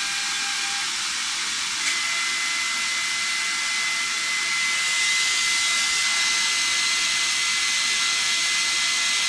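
Agaria CL 20 surface pretreatment head hissing steadily as it treats steel for bonding. About two seconds in a click sets off a steady high whine, and the hiss grows a little louder around five seconds in as sparks show at the nozzle.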